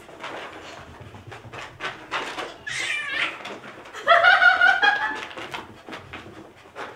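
A puppy whining during play: a short cry about three seconds in and a longer, louder one about four seconds in, among quick soft scuffling sounds.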